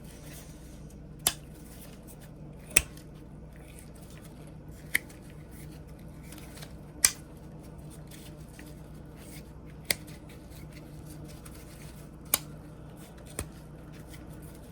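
Scattered sharp clicks, seven of them a second or more apart, from a vintage Barlow pocket knife being handled and worked on while its rusty blade is cleaned, over a faint steady hum.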